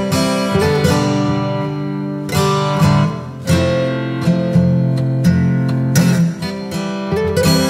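Background music: acoustic guitar, picked and strummed.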